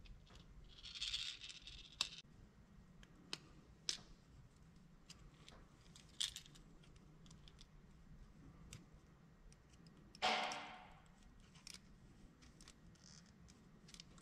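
Faint small metal clicks and scrapes of pliers working a split ring onto a fishing lure's screw eye, with a short rasping scrape about a second in and a louder one near ten seconds.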